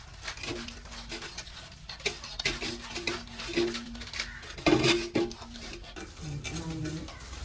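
Knife and metal dishes clinking and scraping while a stingray is cut and cleaned, with the loudest clatter about five seconds in. A faint steady low hum runs underneath.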